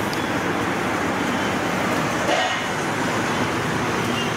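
Steady hum of city traffic, with a short car horn toot about two seconds in.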